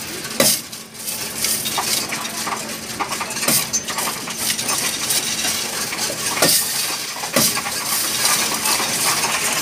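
Loose coins clinking and sliding in a Coinstar coin-counting machine's tray as it is tipped and the coins are pushed in by hand, with several sharper metal clacks standing out.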